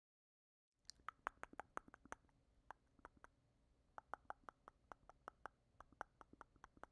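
Light, irregular clicking from a MacBook Pro laptop's keyboard and trackpad as it is used. The clicks start about a second in and come in uneven bunches of several a second.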